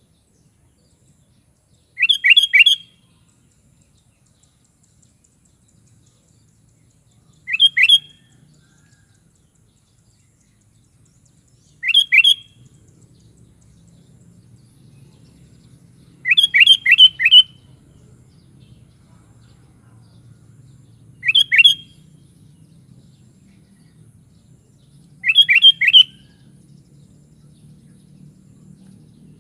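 Sooty-headed bulbul (kutilang) calling: six short bursts of two to four quick rising whistled notes, about every four to five seconds, with a faint low hum behind them.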